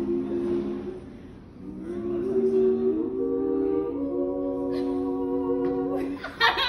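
A small a cappella group singing in close harmony, several voices holding sustained chords. The chord fades about a second in, the voices come back in near two seconds and build to a long held final chord that breaks off about six seconds in.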